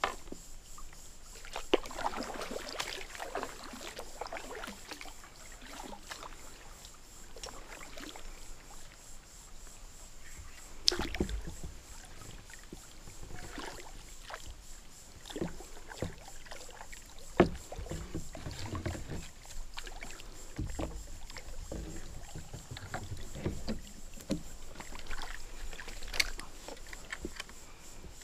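Water splashing and lapping around a plastic kayak as it is paddled and a long bamboo pole is handled, with several sharp knocks scattered through it, the loudest two near the middle.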